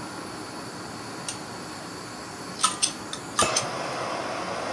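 Propane torch gas hissing from the open valve while a flint sparker is struck a few times with sharp scraping clicks; about three and a half seconds in the flame catches and the torch burns with a louder, steady rushing hiss.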